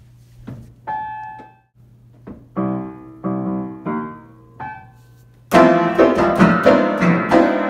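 Grand piano played at random by someone who cannot play: a single note, then a few separate chords, then from about five and a half seconds in, loud clusters of many keys banged at once in quick repetition.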